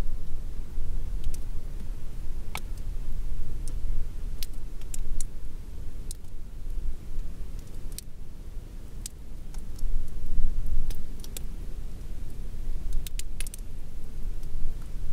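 Mountain wind blowing in gusts, a deep rumble that rises and falls, with scattered light raindrops ticking at irregular moments.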